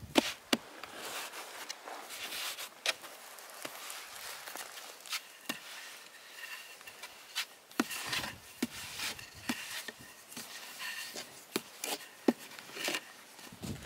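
Flatbread dough being patted and rolled out with a thin wooden rolling pin on a round wooden board: soft rubbing, with sharp wooden clicks and knocks at irregular intervals.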